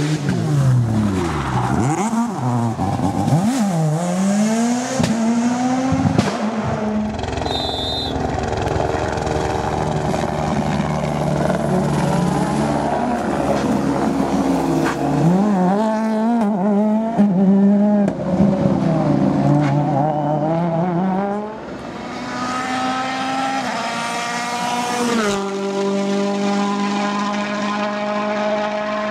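World Rally Cars on a special stage, their turbocharged engines revving up and down through quick gear changes as they pass at speed. After a brief lull near the middle, a steadier drone rises slowly in pitch toward the end.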